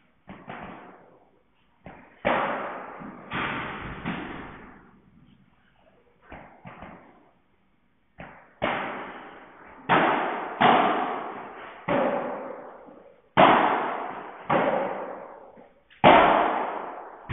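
Padel rally: a string of sharp hits as the ball is struck by rackets and bounces off the court walls, each hit ringing on in the hall's echo, with a quieter gap in the middle.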